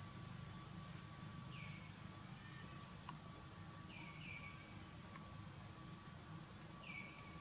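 Faint outdoor ambience in trees: insects trilling steadily in high pulsing tones over a low steady hum, with four short chirps that fall in pitch, two of them close together in the middle.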